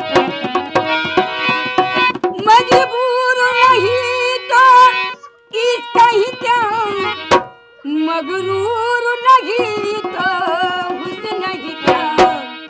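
An elderly woman singing a folk song, accompanied by a hand-played dholak barrel drum. There are short pauses between her sung phrases.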